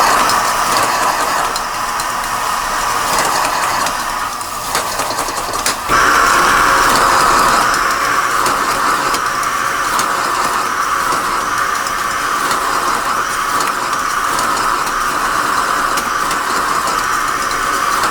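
Fried rice sizzling in a hot wok, a steady hiss with occasional light clicks, growing louder about six seconds in.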